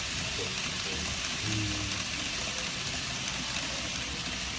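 N gauge model trains running on the layout's track: a steady rolling hiss.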